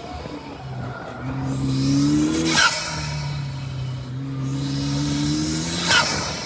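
Ariel Atom's turbocharged engine pulling hard with its pitch climbing, twice, each pull ending in a sharp, brief turbo flutter as the throttle closes for the shift: about two and a half seconds in and again near the end.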